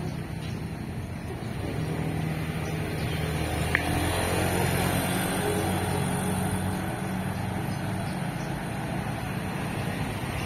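A car engine and tyre noise building as an SUV drives up the road and passes, with a steady low engine hum that fades near the end.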